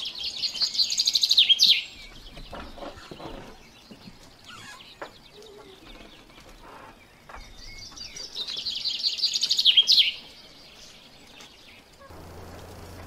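A bird's fast chirping trill, heard twice, each about two seconds long, growing louder and ending in a quick downward sweep.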